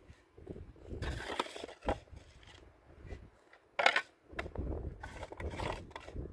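Shovel scraping and crunching into dry, stony soil in short irregular strokes, with a single sharp knock about four seconds in.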